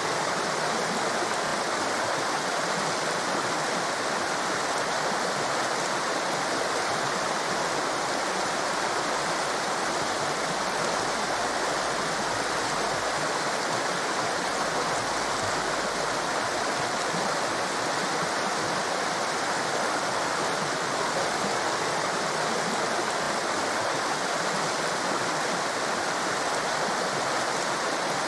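Torrent of water rushing steadily: a constant, even rush of white water with no change in level.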